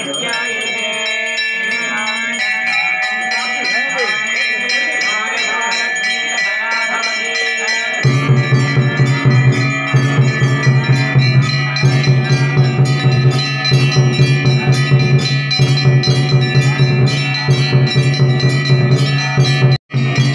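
Temple bells ringing continuously in quick strokes, with many overlapping ringing tones. About eight seconds in, loud music with a strong low steady tone joins the bells.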